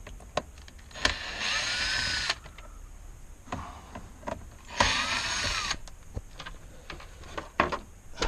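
Cordless power driver running in two short bursts, about a second each, its whine rising then falling in pitch, while a part is being taken off the steering column. Small clicks and knocks of handling parts in between.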